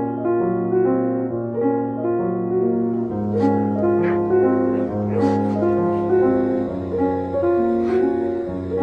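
Slow background piano music, notes changing about every half second, with a few faint brief noises in its middle.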